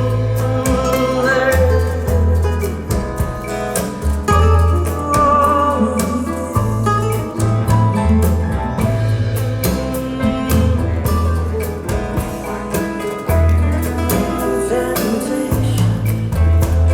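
Recorded song played back over hi-fi loudspeakers, in an instrumental stretch without lyrics. A deep bass line changes note every second or so, under a steady percussion beat and a wavering melodic lead.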